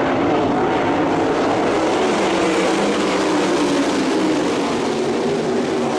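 Several sprint car engines running together at steady, moderate revs, their pitch sliding slowly lower.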